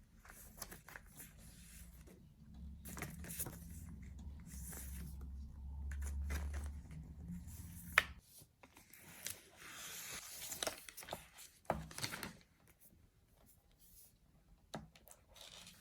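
iPad box and its packaging being handled and opened: rustling and scraping with scattered small clicks, and one sharp click about eight seconds in.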